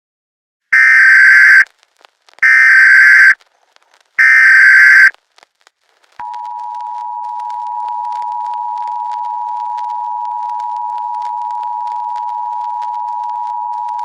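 Emergency Alert System SAME header: three loud, screechy data bursts of about a second each. They are followed by the EAS attention signal, a steady two-tone alert tone near 850 and 960 Hz held for about eight seconds, marking the start of an emergency alert broadcast.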